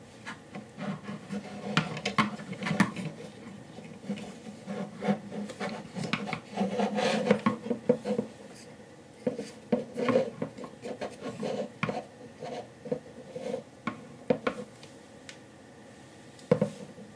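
Hands fitting 3D-printed plastic microscope stage parts together: irregular clicks, taps and rubbing of plastic parts and metal fixings, with one sharp click near the end.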